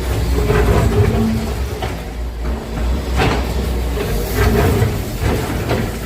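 Excavator diesel engine running with a hydraulic whine rising and falling. A few sharp knocks and crashes of demolition debris come through, about one near the start, one past three seconds in, and two near the end.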